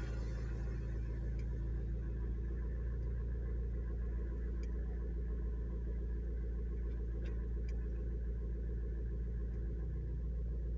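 Car engine idling steadily, heard from inside the cabin, with a few faint clicks now and then.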